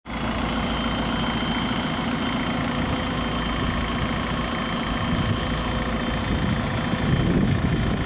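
JCB 3CX backhoe loader's four-cylinder diesel engine running steadily as the machine manoeuvres, getting a little louder about seven seconds in.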